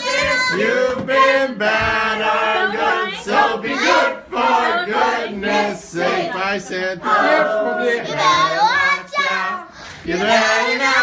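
A roomful of adults and children singing together, with some hand-clapping.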